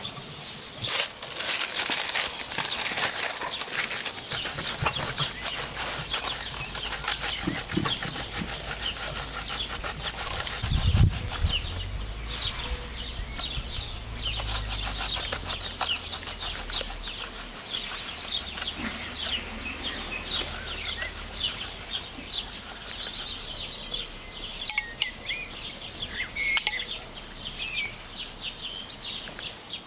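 Many small birds chirping and twittering continuously outdoors, with scattered light clicks. About eleven seconds in, a louder low thump followed by a few seconds of low rumble.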